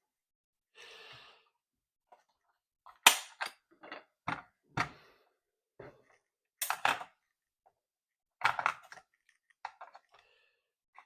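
Handling noise from a Roberts Play 10 portable radio: a brief soft rustle, then about a dozen irregular sharp plastic clicks and knocks as its battery compartment is opened and the batteries are taken out.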